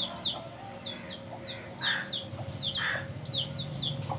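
Baby chicks peeping, a run of short falling peeps about three a second, over the mother hen's clucking. Two harsher, lower calls stand out about two and three seconds in.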